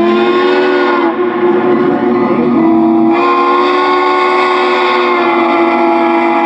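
Steam locomotive whistle blowing one long blast, a chord of several notes held steady, growing fuller about three seconds in.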